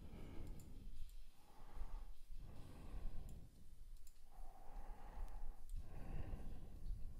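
A person breathing close to the microphone, a run of soft, even breaths about a second long each, with a few faint mouse clicks.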